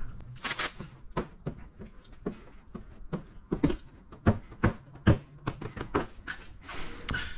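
A hand squeegee stroking across wet paint protection film on a car hood: a string of short, irregular scrapes and taps.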